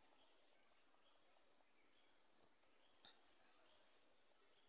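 Faint, high insect chirping, about two to three chirps a second, which stops about two seconds in.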